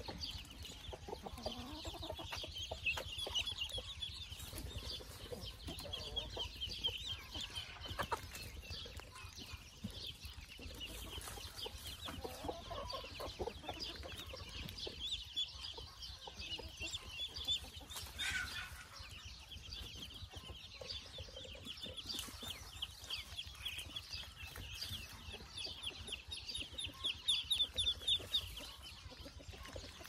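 A flock of ducklings peeping: many rapid, high, overlapping chirps throughout, loudest near the end, with a few lower bird calls mixed in now and then.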